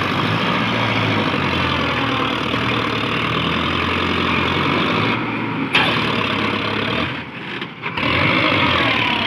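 Sonalika DI-750 tractor's diesel engine running steadily while it pulls a trolley loaded with soil through mud.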